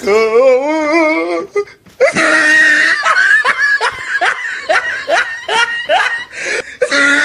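Laughter: a warbling, wavering voice for about a second and a half, then after a short gap a long run of quick rising laugh pulses.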